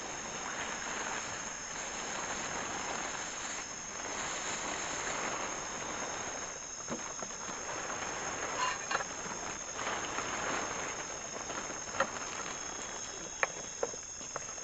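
Night insect chorus, crickets trilling steadily at a high pitch over a noisy background, with a few sharp clicks in the second half.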